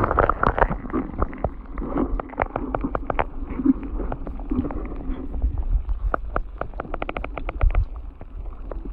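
Muffled underwater sound picked up by a camera held beneath the surface of a saltwater canal: a low rumbling water noise with scattered sharp clicks. It is loudest at the very start, and a quick run of clicks comes about seven seconds in.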